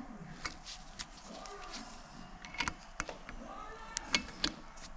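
A series of light metallic clicks and scrapes as a hand tool works a cotter pin out of an ATV's rear axle nut, with several clicks in quick pairs.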